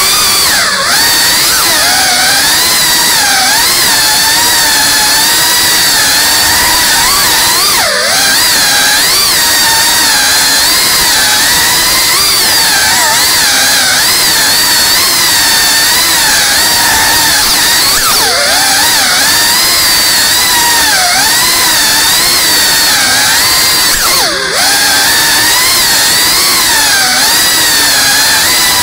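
FPV quadcopter's brushless motors and propellers whining, the pitch constantly rising and falling with the throttle. Twice the sound briefly drops and swoops back up.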